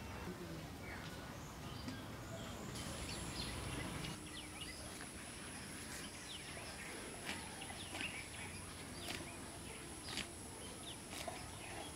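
Outdoor ambience of birds chirping and calling in short scattered notes, with a steady high-pitched hiss setting in about three seconds in.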